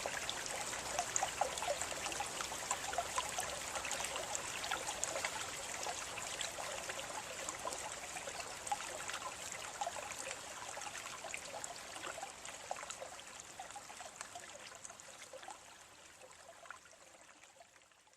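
Water trickling and splashing steadily, with many small drips and splashes through it, fading out near the end.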